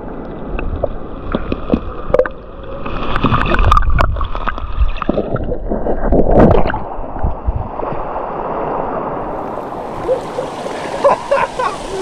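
Muffled gurgling and knocking of creek water heard from underwater, with two louder rushes of water about three and six seconds in. Near the end the sound comes up out of the water and the creek's flow turns into a clear, open hiss.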